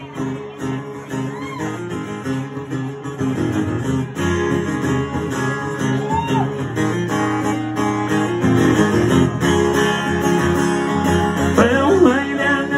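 Amplified acoustic guitar strummed in an up-tempo country rhythm, the instrumental intro to a song; a voice starts singing near the end.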